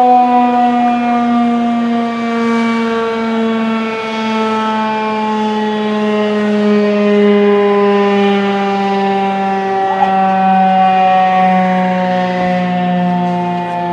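Darley STH-10 outdoor warning siren sounding a steady full-alert tone, its pitch slowly falling.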